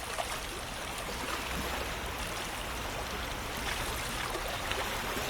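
Running water, like a stream: a steady, even babble with small scattered splashes.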